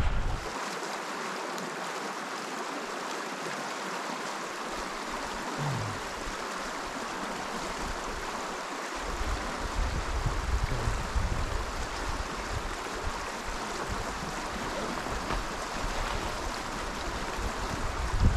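Spring creek water running, a steady rush; from about nine seconds in, an uneven low rumble of wind on the microphone joins it.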